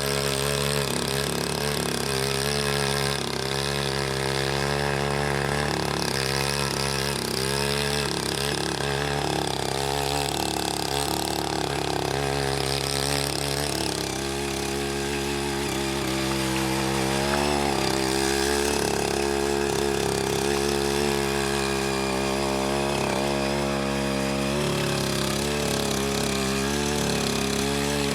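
Small engine of a CY80 hand tiller running at work, its pitch wavering up and down as the rotary tines churn wet, muddy paddy soil.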